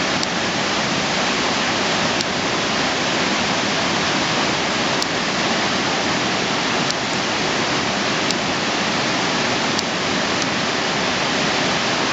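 The San Rafael waterfall, a large waterfall, rushing in a steady, dense wash of falling water. It stays constant throughout, with a few faint ticks here and there.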